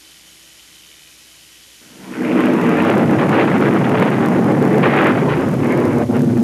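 A faint hiss, then about two seconds in a loud, thunder-like rumbling sound effect swells in and keeps going.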